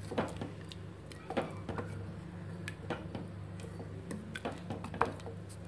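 Wooden spatula stirring thickening semiya payasam in a steel pot, with soft scraping and a few light knocks against the pot, over a steady low hum.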